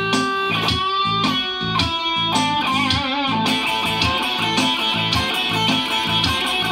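Telecaster-style electric guitar playing a blues lead: held notes bent and shaken with vibrato about halfway through, over a steady repeating low rhythm.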